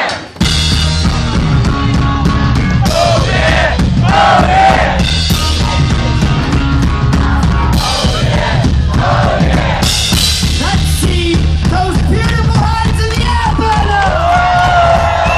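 Live rock band playing loud, with a driving drum kit and bass under the guitars. The band comes back in after a short drop about half a second in.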